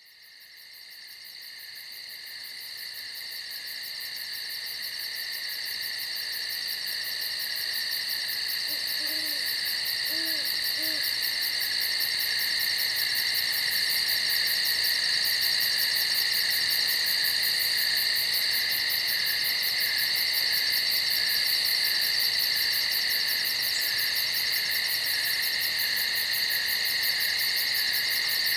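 A steady, pulsing chorus of night insects fading in over the first dozen seconds, with an owl hooting three times, low and faint, about nine to eleven seconds in.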